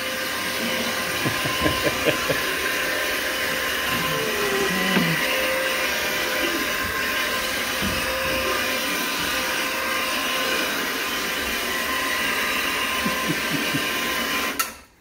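Electric carpet scrubbing machine running steadily with its motor hum and brushes working the carpet. It shuts off suddenly near the end.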